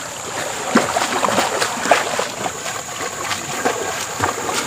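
Water splashing and sloshing irregularly as a person wades across a flowing river, with a steady high-pitched drone in the background.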